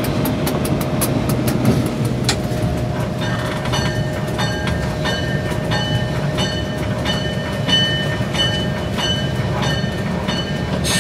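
EMD F7 diesel locomotive rumbling along steadily, heard from inside the cab. A bell starts ringing about three seconds in and keeps striking about twice a second. There are light clicks in the first couple of seconds.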